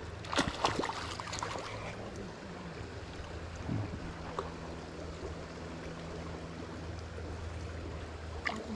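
River current flowing steadily over a riffle, with a few short clicks in the first second or so.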